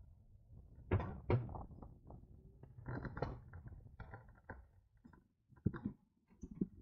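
A series of irregular knocks, clicks and rattles, like hard objects being handled close to the microphone, the strongest about a second in and again a little later.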